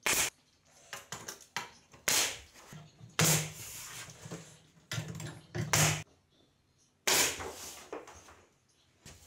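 Pneumatic nail gun firing nails into wooden trim boards: about six sharp shots at uneven intervals, some followed by a short hiss of air.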